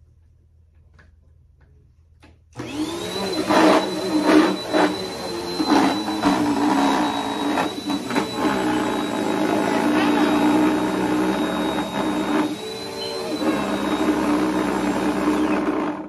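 Upright vacuum cleaner switched on about two and a half seconds in, its motor spinning up to a steady high whine. It runs loudly with brief surges and pitch dips as it is pushed over the floor, then cuts off at the end.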